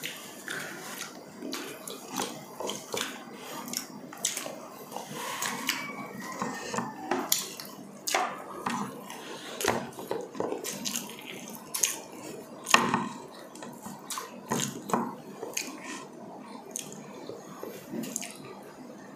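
Close-miked wet chewing and lip-smacking of two people eating fish and chicken with their hands, a steady run of irregular short smacks and clicks, one louder smack a little past the middle.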